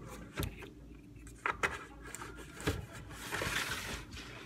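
Handling noise as a plastic milk jug is lifted away and set down after pouring. A few sharp knocks come about half a second, a second and a half and nearly three seconds in, followed by a short hiss near the end.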